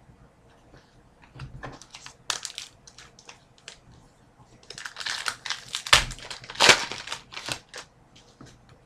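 Crinkling and crackling from a trading-card pack's wrapper being handled and opened, along with cards being shuffled: a run of sharp crackles that starts a second or so in and is densest and loudest about five to seven seconds in.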